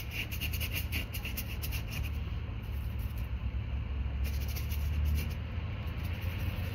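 Paintbrush scrubbing oil paint onto canvas in short uneven strokes, over a steady low hum.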